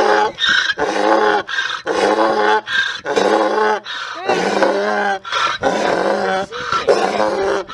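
Jack donkey braying in a steady run of short, harsh, pitched calls, about one and a half a second, while holding his own hind hoof in his mouth.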